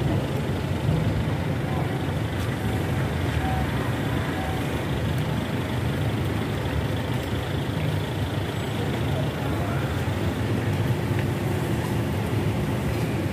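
Steady low rumble of street traffic, with a few faint knocks of a cleaver on a wooden chopping board.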